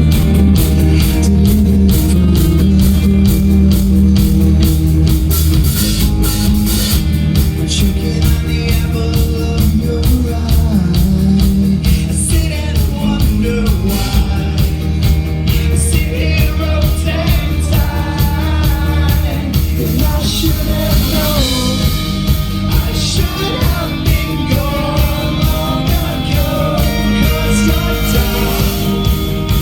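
Rock band playing live: loud distorted electric guitars, bass and a steady drum beat, with singing over it.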